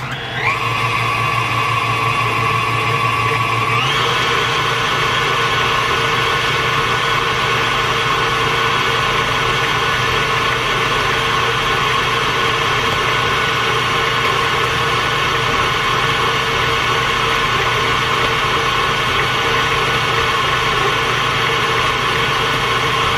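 Electric kitchen mixer running steadily while beating cookie dough; its pitch steps up about four seconds in as it shifts to a higher speed.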